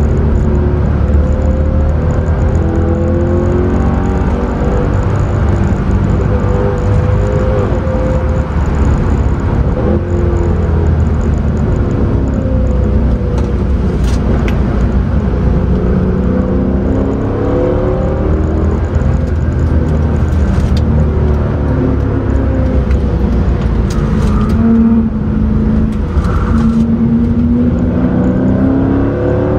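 Mercedes C63 AMG's 6.2-litre V8 heard from inside the cabin, its pitch rising and falling again and again as it accelerates and eases off, with a long climb over the last few seconds. Steady road and tyre rumble runs underneath.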